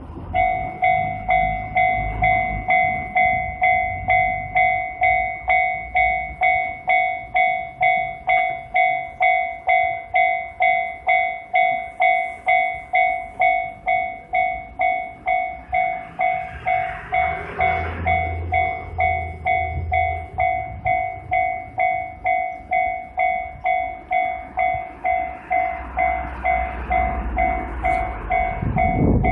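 Japanese railroad crossing warning bell dinging steadily, about two strokes a second, each stroke a bright two-tone ring. A low rumble of a train passing swells under it around the middle and again near the end.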